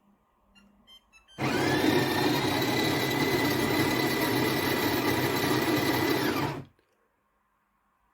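A few faint clicks, then the Beko CaffeExperto bean-to-cup coffee machine starts up and runs loudly for about five seconds, a steady motor whine over a whirring hum, before stopping abruptly.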